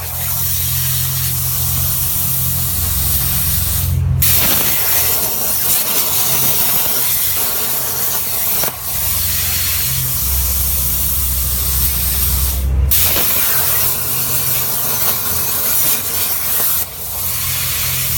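CNC plasma cutter cutting steel plate: a loud, steady hiss of the plasma arc and its air jet, broken off briefly three or four times.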